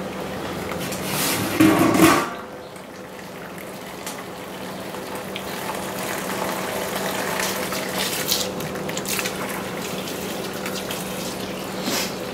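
Hot water pouring from a kettle valve through a tube into an empty plastic cooler mash tun, a steady splashing fill as the first bed of water builds on the bottom. A brief louder noise comes about two seconds in, over a faint steady low hum.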